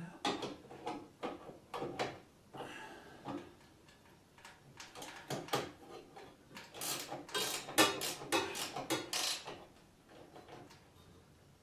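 Clinks, knocks and rattles of metal mounting hardware being handled at a garage door opener's ceiling brackets: irregular clatters, busiest from about five to nine and a half seconds in.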